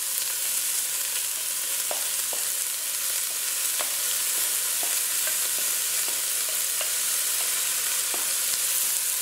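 Diced onions sizzling in hot fat as they are tipped from a bowl into a stainless-steel pot, a steady frying hiss with a few light knocks against the pot.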